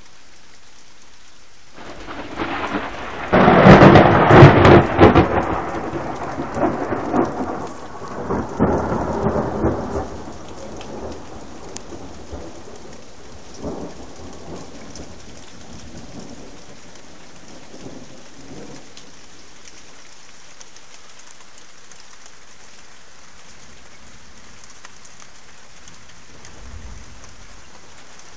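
Thunder over steady rain. A peal starts about two seconds in, is loudest around four to five seconds, and rolls on in surges before dying away by about ten seconds. A couple of faint rumbles follow, and another peal begins near the end.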